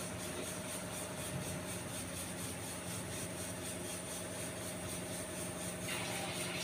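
Chicken kofta balls frying in hot oil in a wok: a steady sizzle over a low hum. The sizzle grows louder and brighter about six seconds in.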